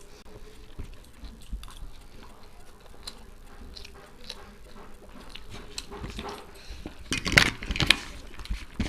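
People chewing and crunching food while eating fast, with scattered small clicks. A louder cluster of sharp clicks and crunches comes about seven to eight seconds in.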